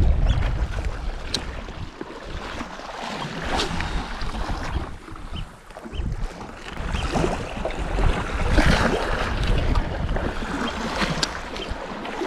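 Sea waves washing against a rocky shore, swelling and easing several times, with gusts of wind buffeting the microphone.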